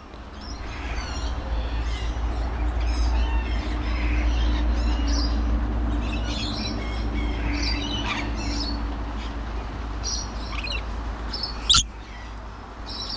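Scaly-breasted and rainbow lorikeets chattering close to the microphone: many short, high chirps and squeaks over a steady low rumble, with one loud, shrill screech near the end.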